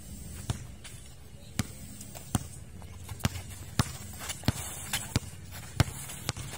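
A basketball being dribbled on a concrete court: about ten sharp bounces at an uneven pace, coming quicker in the second half.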